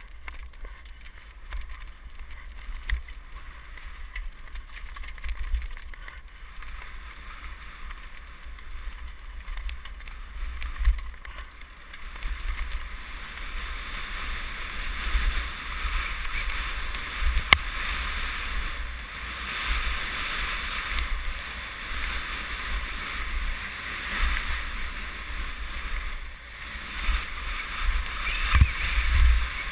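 Wind rushing over a helmet-mounted camera and knobbly tyres rolling on a dirt trail during a fast mountain-bike descent, with frequent low thuds from bumps and roots. It gets louder and rougher about twelve seconds in, and there is one sharp knock about halfway through.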